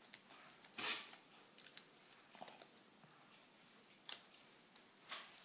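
Faint handling sounds of fingers working adhesive tape around a pug puppy's ear: soft rustles and scattered sharp clicks, with a short rustle about a second in and the sharpest click about four seconds in.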